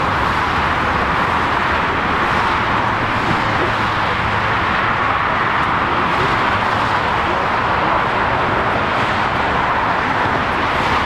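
Steady airport background noise: an even, rushing roar that holds at one level without rising or falling.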